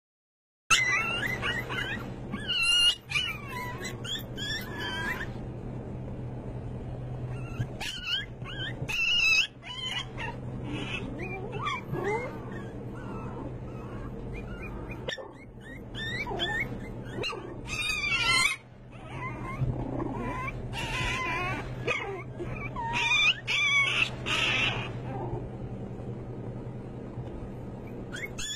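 A litter of young puppies whimpering and yipping in short, high-pitched, wavering cries. The cries come in clusters with quieter gaps between them, over a steady low hum.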